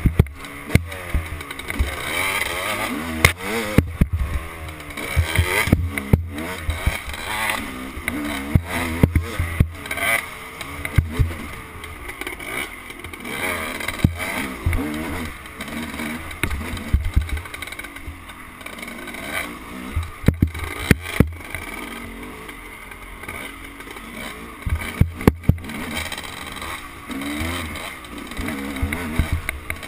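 Dirt bike engine revving up and down as it is ridden along a twisty trail, the pitch rising and falling with the throttle, with many sharp knocks scattered throughout.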